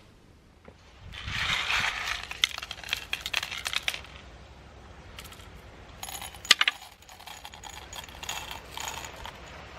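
Clattering and clicking of small hard objects being handled, densest in the first few seconds, with one sharp knock about six and a half seconds in.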